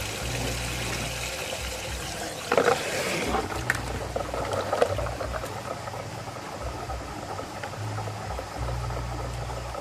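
Water swirling in a vortex tank, with a brief louder splash about two and a half seconds in, over a low hum that comes and goes.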